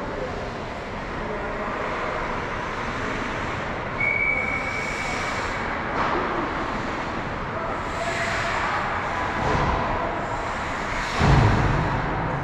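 Ice hockey game in an indoor rink: steady echoing rink noise of skates and sticks on the ice, with a short high tone about four seconds in, a sharp knock at six seconds and a loud heavy thump about eleven seconds in.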